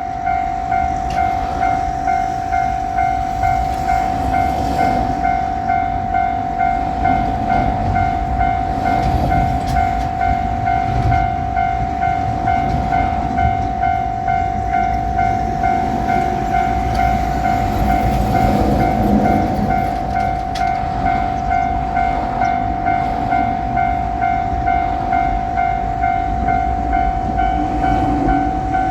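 Japanese level-crossing warning bell ringing its steady, evenly repeating 'kan-kan' alarm, with the low rumble of a train underneath that grows near the end.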